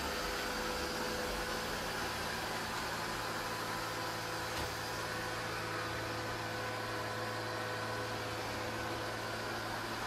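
Neato Botvac D7 Connected robot vacuum running across a hard floor: a steady whir of its suction fan with an even hum.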